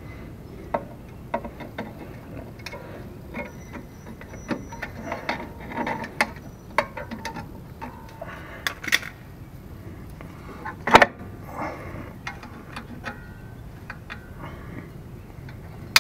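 Irregular metallic clicks, taps and scrapes of a hand tool working the springs and shoes of a truck's rear drum brake, with one louder clank about eleven seconds in.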